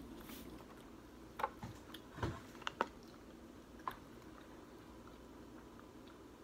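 Faint handling sounds of a plastic water bottle: a few sharp clicks and crinkles as it is picked up and its cap twisted off, with one soft knock about two seconds in.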